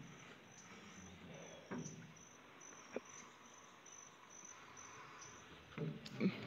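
Insects chirping in a steady, high, pulsing trill, a few pulses a second. A few dull knocks and a sharp click cut in, the loudest knocks near the end.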